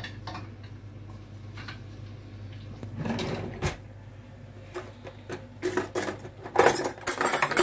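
Clatter and knocks of pots, pans and utensils being handled in a kitchen, over a steady low hum; the knocks come thicker near the end.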